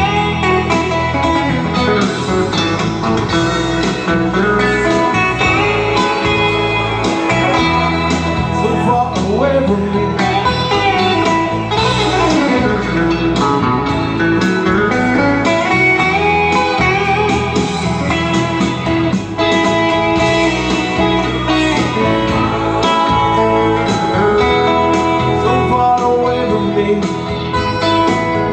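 Electric guitar played live, a lead line of notes that slide and bend up and down over a steady backing with bass and beat, through a small PA.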